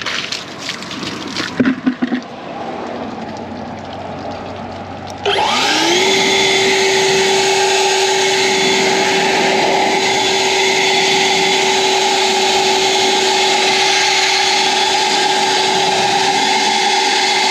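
EGO Power+ LB7650 56V cordless leaf blower with a car-drying nozzle. A few knocks and some lower running noise come first; then about five seconds in the motor spins up with a rising whine and runs steadily at high speed with a loud rush of air.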